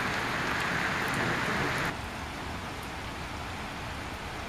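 Steady hiss of rain falling during a thunderstorm, stepping down abruptly in loudness about two seconds in.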